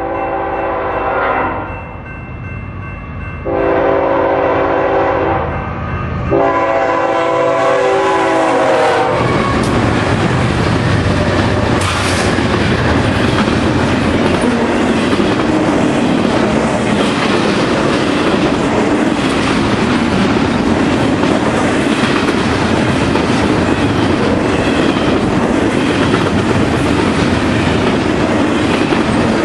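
BNSF freight locomotive horn sounding three long blasts as a double-stack intermodal train approaches. The train then passes close by: a steady loud rumble with the clickety-clack of container well cars rolling over the rail joints.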